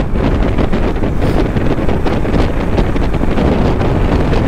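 Steady wind noise buffeting a rider's microphone on a motorcycle moving at highway speed. The mic has lost its foam windscreen.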